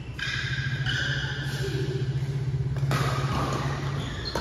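An engine running steadily with a fast low pulse, fading out near the end. A racket strikes a shuttlecock sharply about three seconds in.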